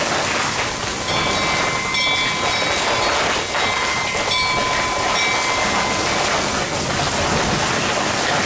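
Steady rain, an even hiss with no thunder in it. Thin, high, steady tones come and go over it, each lasting a second or two.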